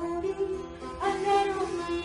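A woman singing a Persian song, accompanying herself on a plucked long-necked lute; a new sung phrase starts about halfway through.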